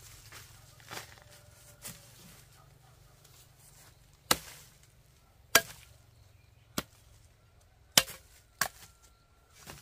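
A blade chopping with sharp, irregular strikes: two light hits early, then five harder blows about a second apart.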